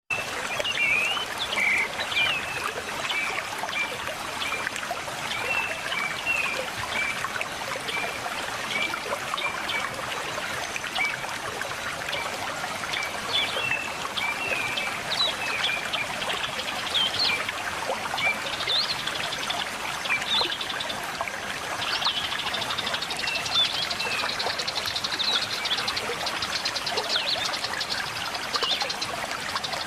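A river's steady trickling flow, with birds chirping again and again over it in short high notes. About two-thirds of the way through, a fast buzzy trill joins in higher up.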